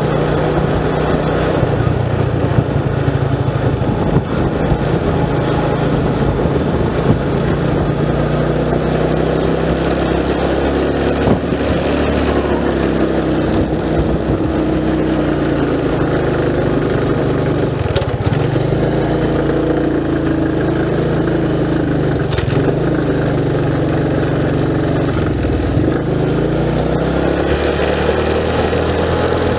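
Motorcycle engine running while riding, its pitch rising and falling with the throttle.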